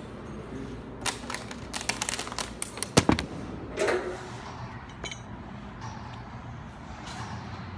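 Metal gym equipment clinking and clanking in a quick run of sharp clicks, loudest about three seconds in, followed by a short rustle as the lifter settles onto the weight bench. A steady low hum runs underneath.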